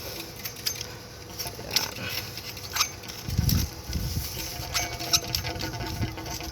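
Small clicks and scrapes of a copper pipe being pushed and worked further into a compression elbow, with a couple of dull low thumps about halfway through.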